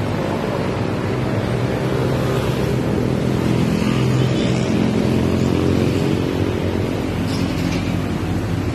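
Motorcycle traffic on a multi-lane road: many motorcycle engines running past together in a steady drone, growing a little louder around the middle.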